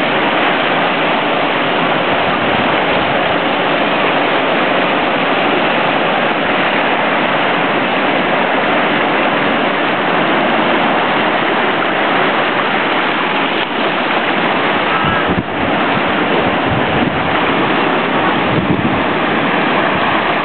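Ocean waves breaking on a beach: a steady, loud wash of surf with no pause between breakers.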